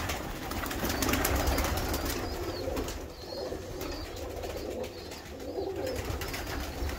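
Several domestic pigeons cooing, with scattered light clicks.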